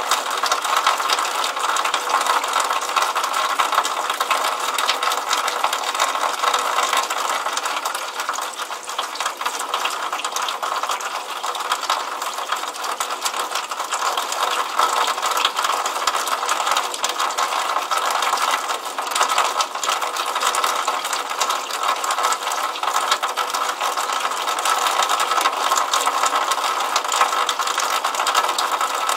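Rainwater pouring in a steady stream from a downspout outlet and splashing into a puddle on paving: a dense, rapid, even patter.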